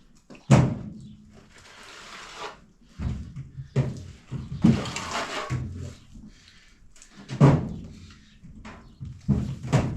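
Several heavy knocks or thuds a few seconds apart, with rustling and scraping between them.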